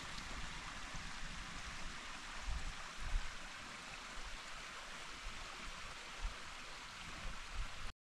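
Steady rush of a stream running through a wooded ravine, with a few low bumps of wind on the microphone; it cuts off suddenly at the very end.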